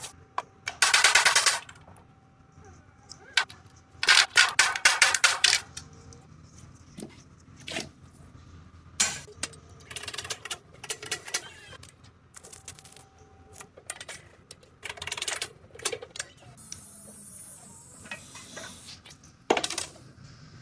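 Air tool firing in short bursts of rapid hammering, the longest about a second and a half, with separate sharp metal knocks between bursts.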